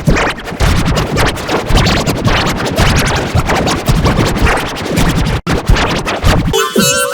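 Heavily distorted, noisy music chopped into rapid stutters, like record scratching. It cuts out briefly about five and a half seconds in, and a clear pitched melody comes in near the end.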